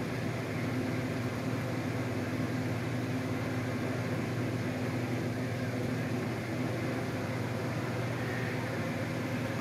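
Steady low machine hum with a faint even hiss.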